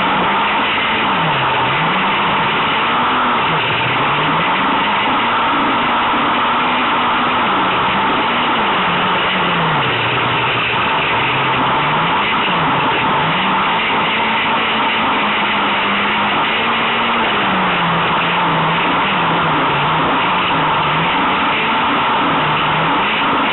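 Peugeot 106 Rallye's 1.6-litre 16-valve TU5J4 engine on Weber carburettors and a Supersprint exhaust, heard from inside the car while racing on dirt: the revs climb and drop again and again as it is driven hard, held high for a few seconds around a quarter and again past halfway, over a constant loud noise of the car at speed.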